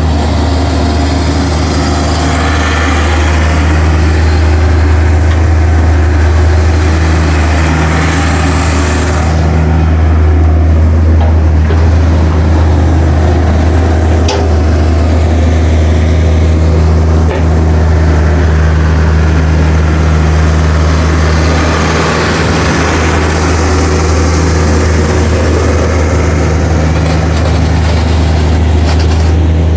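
Caterpillar 305 D CR mini excavator's diesel engine running at a steady speed, a deep even hum, with a brief click about halfway through.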